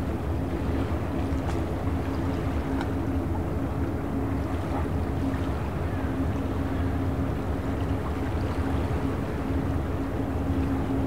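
Boat engine running steadily in the harbour, a low rumble with a constant hum over it.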